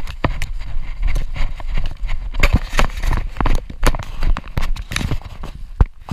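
Hurried footsteps through dry leaves and weeds, a rapid uneven run of crunches and knocks, over a steady low rumble of wind and handling on the camera's microphone.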